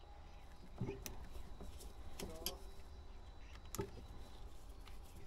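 Faint clicks and small knocks of locking pliers and a hose fitting being handled on an engine's fuel line, with a brief squeak a little after two seconds in, over a low steady rumble.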